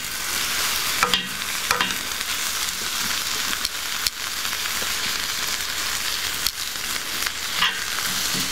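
Thinly sliced onions sizzling in hot oil in a small pan as they soften, with metal tongs clicking against the pan every so often as they are stirred.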